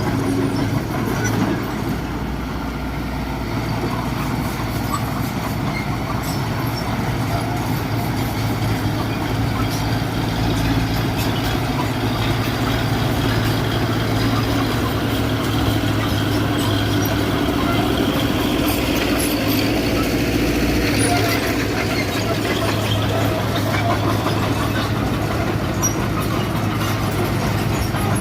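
Diesel engine of a Mitsubishi BD2G bulldozer running steadily.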